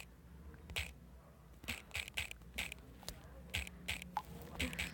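Irregular light clicks of typing on a smartphone, about eight taps spread over a few seconds.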